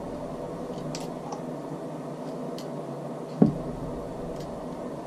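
Small clicks and one sharper knock about three and a half seconds in as the bolt and extractor of a Marlin 336 lever-action rifle are handled and refitted, over a steady room hum.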